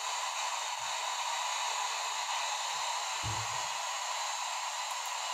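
Steady hiss of background noise, with a brief low thump about three seconds in.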